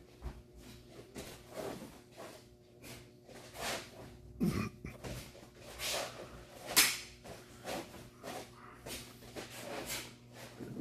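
Martial arts uniform swishing and snapping with fast strikes and blocks, and feet stepping and turning on the floor, as a form is performed at full speed. Short sharp strokes come irregularly, the loudest about seven seconds in, with a brief voiced exhale about four and a half seconds in.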